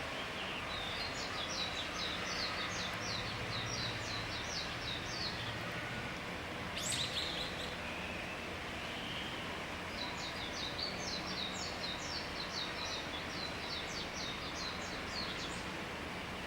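Common kingfisher giving two rapid series of high, thin, shrill call notes, one about a second in and one about ten seconds in, with a single sharper call about seven seconds in, over a steady background hiss of the river.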